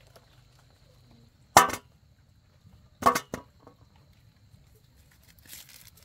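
Ears of corn being snapped off their stalks: two sharp cracks about a second and a half apart, the second followed by a smaller one, then a faint rustle of dry leaves near the end.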